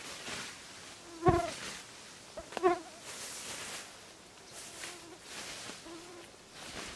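Hand scythe swishing through long grass in repeated mowing strokes, about one a second, with a fly buzzing close by, loudest twice with a sharp knock each time.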